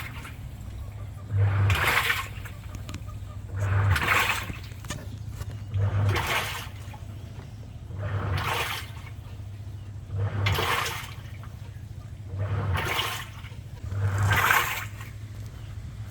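Samsung automatic washing machine in a wash cycle: the drum motor hums in a surge about every two seconds, each surge swishing the water and clothes, about eight times in a steady rhythm.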